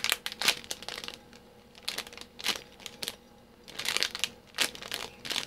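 Clear plastic bag crinkling as hands squeeze a small foam squishy inside it: short irregular crackles in three bunches, near the start, in the middle and a little before the end.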